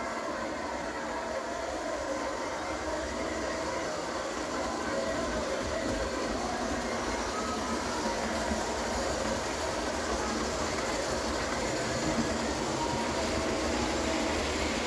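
Model railway train, a model of the Britannia steam locomotive 70000 hauling Pullman coaches, running along the layout track: a steady whirr of the model's motor and its wheels rolling on the rails, growing gradually louder as it passes.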